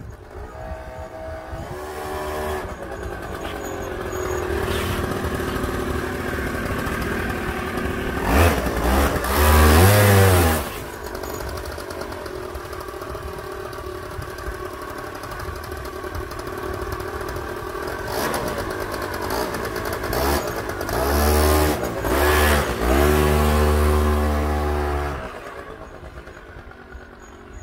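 Small 100cc two-stroke motorcycle engine running and being revved. It surges up and down in pitch, loudest about nine to ten seconds in and again from about twenty to twenty-five seconds in, then fades away near the end.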